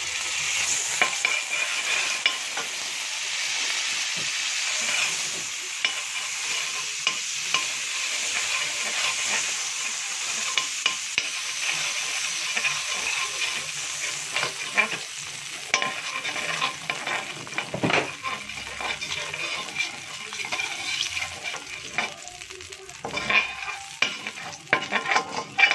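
Butter sizzling as it melts in a hot stainless steel pan, while a utensil stirs it around and scrapes and clicks against the pan, the clicks coming thicker near the end.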